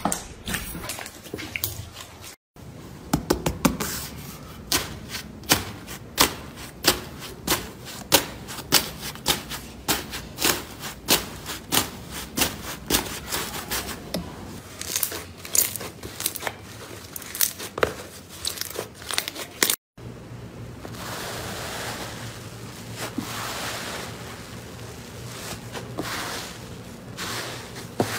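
Slime being squeezed and pressed by hand: a quick run of sharp crackles and pops, followed after a cut by a softer, wet squishing that swells and fades in waves.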